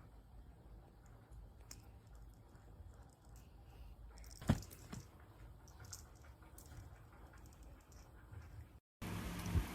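Light scattered taps and clicks in a quiet room, with a sharper knock about four and a half seconds in and a smaller one just after. Near the end the sound cuts to a louder steady hiss.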